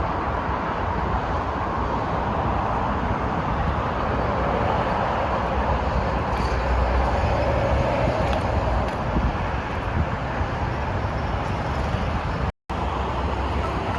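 Steady outdoor noise with a low rumble, like road traffic, cutting out for a moment near the end.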